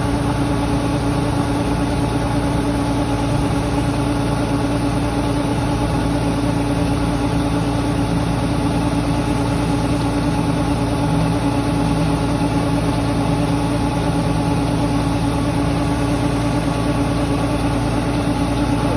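Engine of rice harvesting machinery running steadily at one constant speed, a continuous even drone.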